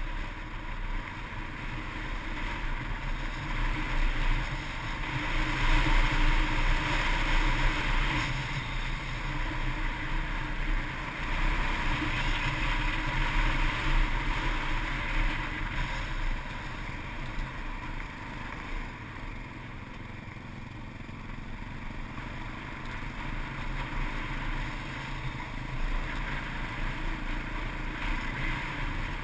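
Yamaha Ténéré 660's single-cylinder engine running steadily while riding a gravel track, mixed with wind rushing over the camera microphone. It grows louder a few seconds in, eases off past the middle, and picks up again near the end.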